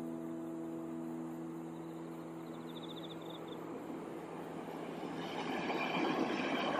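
A locomotive-hauled passenger train approaching along the track, the rumble of its wheels on the rails growing steadily louder over the last few seconds. At the start, the last held notes of music fade away, and a short high chirp sounds near the middle.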